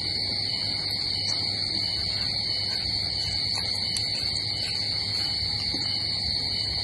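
Steady high-pitched insect chorus, with a low hum beneath and a few faint clicks about halfway through.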